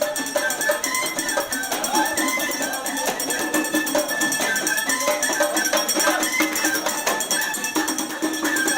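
Music with a quick, steady beat of jingling percussion and a melody over it.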